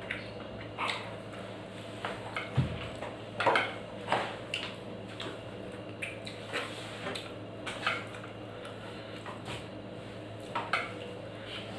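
Eating by hand from a stainless steel plate: scattered light clicks and scrapes as fingers mix and gather rice against the metal, along with mouth sounds of eating, over a steady low hum.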